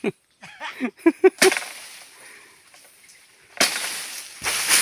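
Oil palm fronds, cut with a dodos (a chisel blade on a long pole), crashing down and rustling through the leaves. One sudden crash comes about a second and a half in and dies away slowly, and two more come close together near the end.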